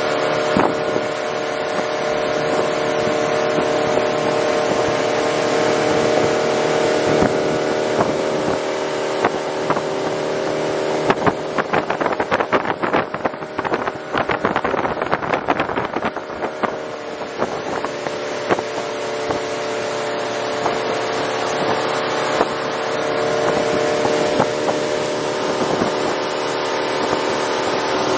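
Boat motor running steadily at speed. A run of rapid, irregular knocks comes in about the middle.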